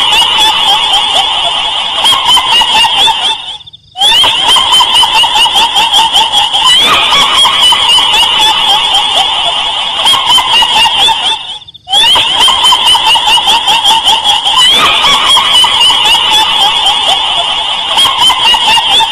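A loud, high, rapid cackling chatter, laugh-like and eerie, repeated as a loop with two brief breaks, about 4 and 12 seconds in.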